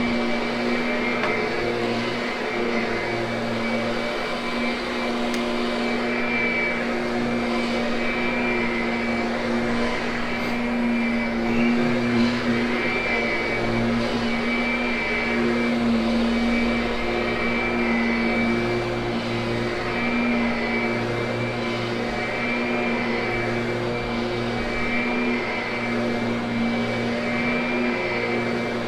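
Kirby upright vacuum cleaner running steadily at one constant pitch while grooming a freshly cleaned carpet, with a lower rumble that swells and drops every few seconds.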